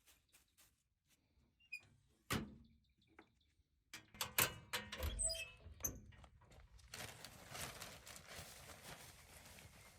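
Handling noises in a wooden chicken coop: scattered light knocks, a sharp thunk a couple of seconds in, and a quick run of knocks and clatters, followed by a steady rustling over the last few seconds.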